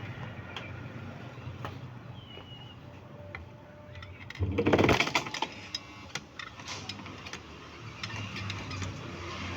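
Electric sewing machine run briefly from its foot pedal, a burst of fast stitching of about a second near the middle, with a low hum and small clicks around it. This is a test of a pedal that had been giving electric shocks when pressed.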